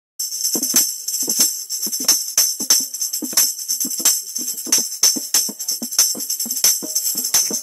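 Music with a steady beat of regular drum hits under a constant high jingling percussion, cutting in suddenly from silence.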